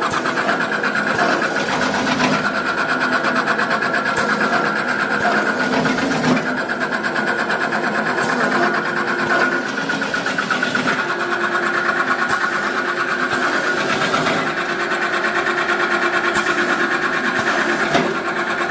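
Electric peanut slicing machine running, a steady rapid mechanical chatter as it cuts peanuts into slices, with a few brief louder knocks.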